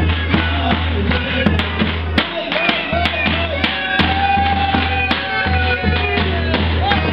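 Live dance music: a davul, the large double-headed Turkish bass drum, beaten in a steady rhythm under a melody with long held notes.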